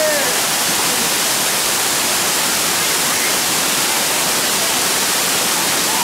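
Waterfall pouring onto rocks close by: a steady, loud rush of falling and splashing water.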